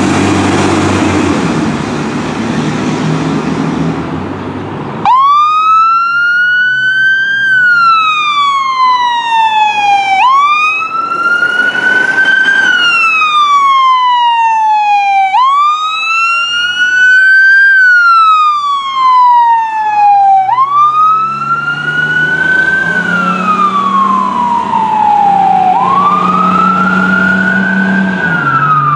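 Fire truck siren wailing, rising and falling in even cycles about five seconds long, coming on about five seconds in after heavy vehicle engine and road noise.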